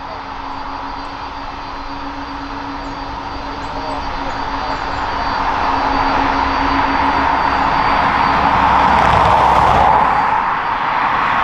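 Jet engines of a DHL Airbus A300 freighter running as it taxis on the runway: a steady rushing hiss with a thin high whine, growing louder as the aircraft comes nearer and turns.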